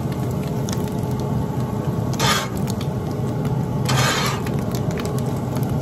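Metal spatula scraping across a cast iron griddle as it pushes onions and mushrooms around, with two longer scrapes about two and four seconds in and a few light clicks, over a steady low hum.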